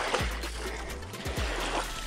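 Background music with a deep drum beat and a steady bass.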